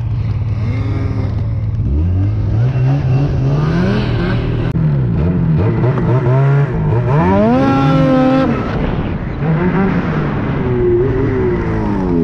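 Ski-Doo Summit snowmobile's turbocharged 850 two-stroke Turbo R engine under riding load, its revs climbing and dropping again and again as the throttle is worked. The engine pitch peaks highest about two-thirds of the way through.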